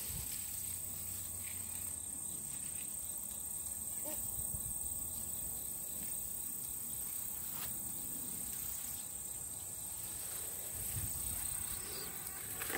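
Insects in the garden trilling in a steady, unbroken high-pitched chorus, with faint low rustling beneath.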